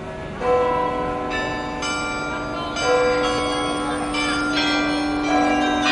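Cathedral church bells start ringing about half a second in: several bells are struck one after another at uneven intervals, and their tones ring on and overlap.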